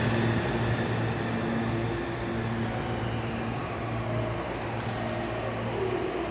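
Meitetsu 2200 series electric train rolling slowly alongside the platform and coming to a stop, its running noise fading gradually as it slows.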